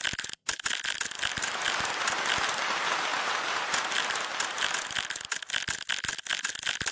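Rapid crackling and rustling noise: a dense run of clicks with a steadier hiss in the middle.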